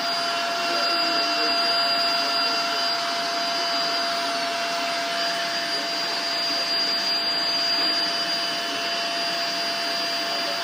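Vacuum cleaner running steadily: a constant rush of air with a steady motor whine.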